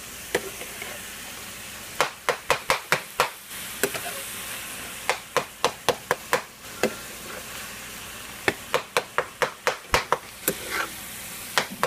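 Ground turkey sizzling as it browns in a frying pan, with a utensil tapping and scraping against the pan in several quick runs of strokes as the meat is broken up and stirred.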